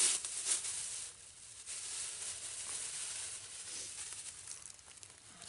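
Plastic bag crinkling and rustling as it is handled, with a few sharp crackles at the start and then a steady rustle that fades near the end.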